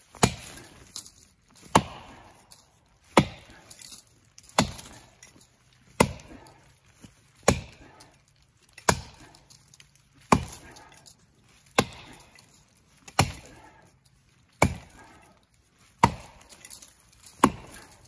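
An axe chopping into the trunk of a dead standing tree, about thirteen hard strikes at a steady pace of roughly one every second and a half, cutting the felling notch.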